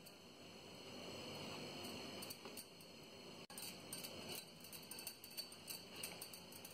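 Block of cheese rubbed against a flat metal hand grater: faint, quick rasping strokes in an uneven rhythm.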